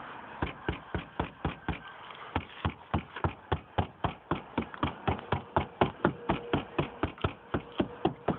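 Steady knocking on a car's trunk body panel lined with Audio Technix 60 mil sound deadener, about three knocks a second. The knocks are dull, the sign that the deadener has damped the sheet metal: "pretty dead".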